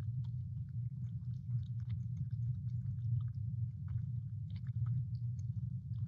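Coyote lapping water from a shallow basin: a quick, irregular run of small clicks, over a steady low rumble.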